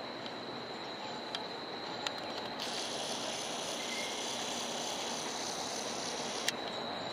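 Low-floor streetcar approaching slowly over street ambience, with a thin, steady high-pitched whine. From about two and a half seconds in, a brighter high hiss with several thin tones joins, cutting off with a sharp click near the end.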